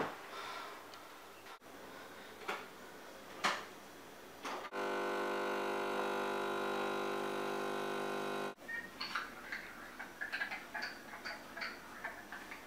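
Nespresso capsule coffee machine's pump buzzing steadily for about four seconds as it brews into a cup, starting a little before the middle and cutting off abruptly. A few light clicks and knocks come before it, and a patter of small clicks and taps follows.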